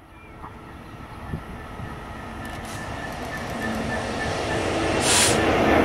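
Class 66 diesel-electric locomotive, its two-stroke V12 engine running steadily, hauling a freight train of tank wagons and growing steadily louder as it approaches, with wheels rumbling on the rails. A short hiss about five seconds in.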